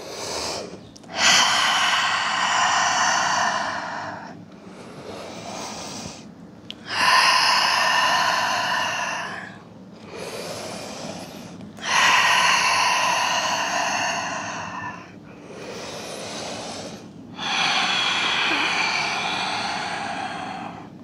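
A woman breathing slowly and deeply: four long, loud breaths about five seconds apart, each lasting about three seconds, with quieter breaths between.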